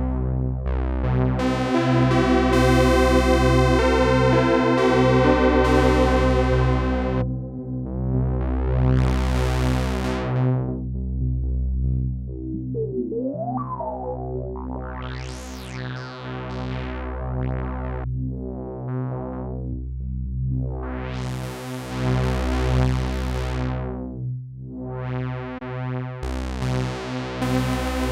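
Sequential Prophet-10 analog polysynth playing a low sustained chord. Its bright upper overtones swell and fade again several times as a front-panel knob is turned, with a short gliding pitch about halfway through.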